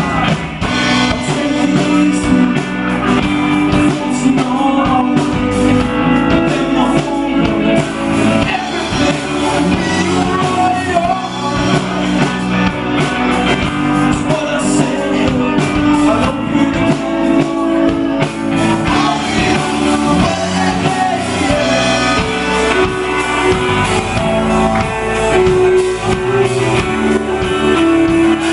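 Live rock band playing a song, with electric guitar and a lead voice singing over it.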